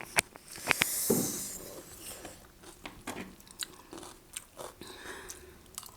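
Close-miked eating sounds: chewing and crunching through a mouthful of spicy noodles, with many sharp wet mouth clicks and a brief hissy rush about a second in.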